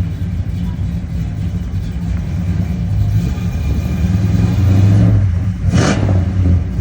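Car engine running with a low, steady rumble that swells about two-thirds through, cut by a short burst of hiss near the end.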